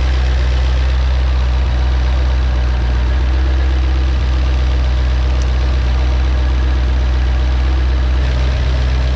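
Steady low mechanical drone that holds an even pitch and level throughout.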